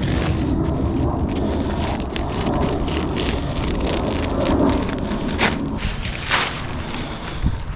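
A roll of synthetic grass being unrolled and dragged across the ground, its plastic blades and backing rustling and crackling with many small ticks and a few sharper clicks.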